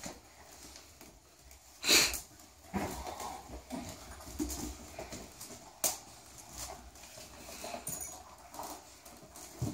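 Dog snuffling and rummaging with its head in a wicker basket, with two short loud bursts of sound, about two and six seconds in.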